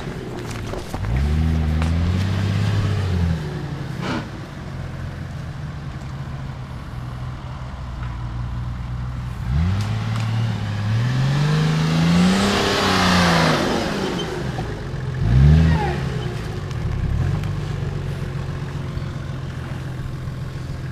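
Nissan Patrol 4x4 engine idling and revving hard in repeated bursts as it struggles to climb a steep dirt slope. The longest rev, about halfway through, rises and falls with a rush of spinning-tyre noise at its peak. There is a sharp knock early on.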